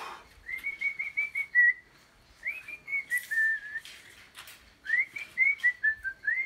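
A man whistling a tune: three short phrases of quick clear notes, each phrase falling in pitch toward its end.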